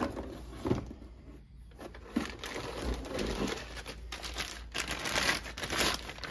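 Clear plastic bags crinkling as they are handled and pulled about, a dense irregular crackle through most of the stretch. A couple of light handling knocks within the first second.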